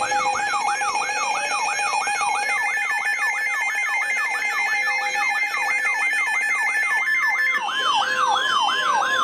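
Weather radio alert alarms sounding together: a siren-like tone sweeping up and down about three or four times a second over steady beeping tones. About seven seconds in, a steady tone near 1 kHz joins it, typical of the NOAA Weather Radio 1050 Hz warning alert tone that comes before a broadcast warning.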